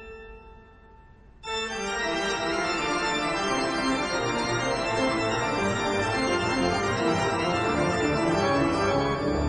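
Organ music: a held chord dies away, then about a second and a half in a new passage of many quick notes begins and carries on.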